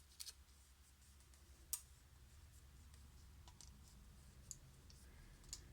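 Faint, scattered small clicks and taps from handling smartphone parts and repair tools during disassembly, about five over a few seconds, over a low steady hum.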